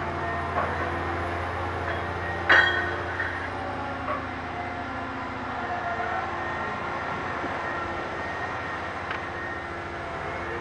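Liebherr HS 8300 HD hybrid dragline running steadily as it swings its boom and bucket round, a low hum under a steady mechanical whine. About two and a half seconds in comes a single loud metallic clank that rings briefly, with a few lighter knocks around it.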